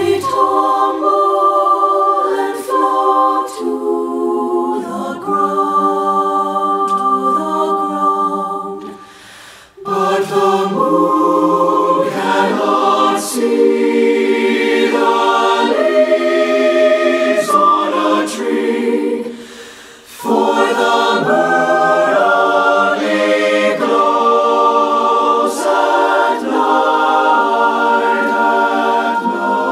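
Mixed SATB choir singing a cappella in sustained chords. The singing comes in three phrases, each ending in a short break about ten and twenty seconds in.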